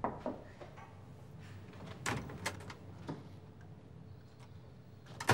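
A door being opened by hand: a latch click, a few light knocks and clunks, then a sharp click near the end.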